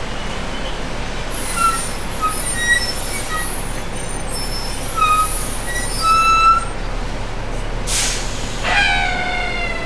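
Riding inside a city bus: steady engine and road rumble, with short high-pitched squeaks scattered through the first part. About eight seconds in there is a sharp burst of air-brake hiss, followed by a longer brake squeal that drops slightly in pitch as the bus slows.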